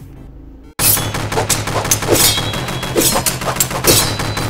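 Rapid machine-gun-style gunfire sound effect: a dense stream of shots that starts suddenly about a second in and keeps going.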